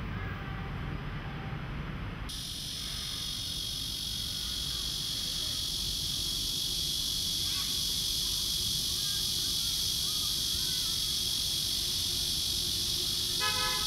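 Low traffic rumble that cuts off about two seconds in, giving way to a steady, dense, high-pitched insect chorus with a few faint chirps.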